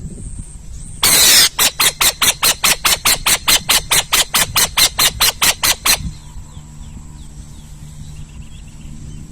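An owl calling: one long harsh screech, then a run of about twenty short harsh screeches at about four a second that stops abruptly.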